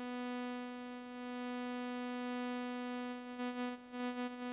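Native Instruments Massive software synth sounding a single held note with a rich, buzzy tone. Near the end its level starts to wobble as the looping envelope runs through its wavy section.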